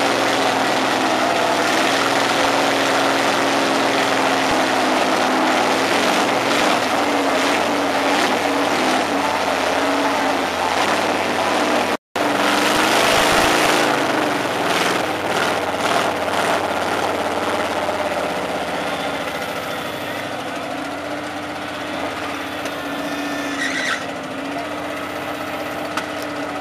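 Mud-bogging buggy's engine running hard under load as its big tires churn through deep mud, throwing mud. The sound cuts out briefly about twelve seconds in, then comes back and grows fainter toward the end.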